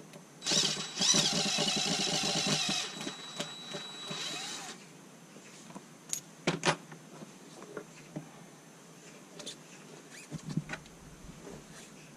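Cordless drill driving a screw into a wooden chopping block, its motor whining with a wavering pitch for about four seconds. A couple of sharp clicks follow about two seconds later.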